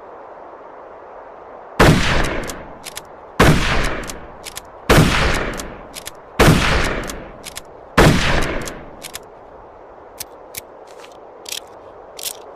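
Five shots from a Mosin-Nagant M91/30 bolt-action rifle, about one and a half seconds apart, each with a fading echo of about a second. A few light clicks follow near the end.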